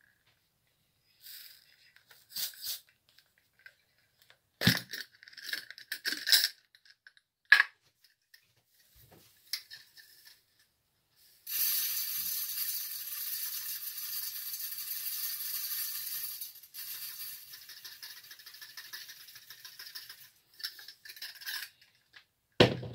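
Dry rice grains poured from a glass jar into a stainless steel saucepan: a dense, steady rattle of grains on metal for about five seconds, thinning to a lighter trickle. Before it, scattered clinks and knocks from handling the clip-top glass jar, and a sharp knock near the end.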